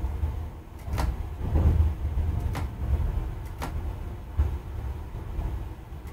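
Railway transfer table travelling sideways, with a steady low rumble and a sharp click every second or so.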